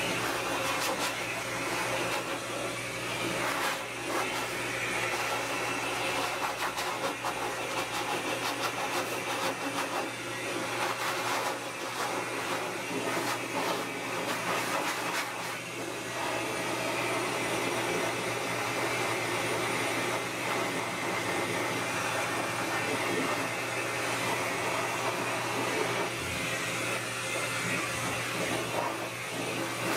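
High-velocity pet dryer blowing air steadily through its hose onto a wet poodle's coat, with a steady low hum under the air noise.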